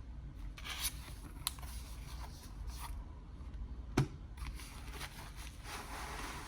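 Keyboard box and packaging being handled and opened: scraping and rustling, with one sharp knock about four seconds in.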